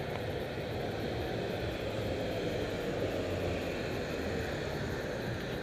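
Steady city traffic noise, mostly a low rumble without distinct events.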